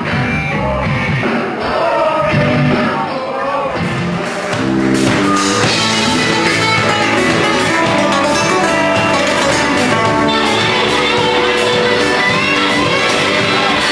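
Live rock band playing: a man singing over electric guitar, drums and keyboard, with the full band and cymbals coming in hard about five seconds in.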